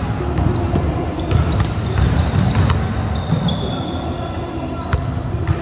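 Basketballs bouncing on a hardwood gym floor, with sneakers squeaking in short high chirps, during a full-court pickup game in a large echoing gym.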